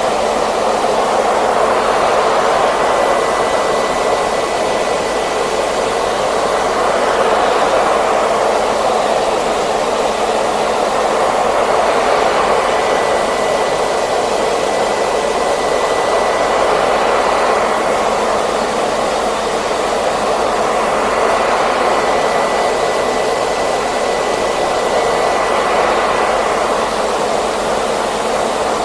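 Hair dryer running continuously: a steady rush of blown air with a faint high whine above it, swelling slightly every few seconds.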